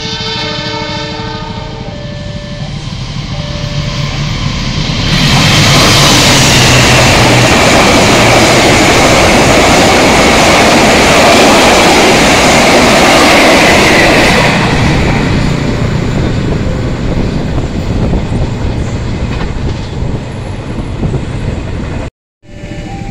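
A CC 206 diesel-electric locomotive at the head of a passenger train sounds its horn, several notes at once, in the first couple of seconds as it approaches, with a short second note a few seconds in. Its engine rumble builds, then the train passes loudly from about five seconds in to about fourteen seconds, wheels on the rails and carriages rushing by, before the sound fades away.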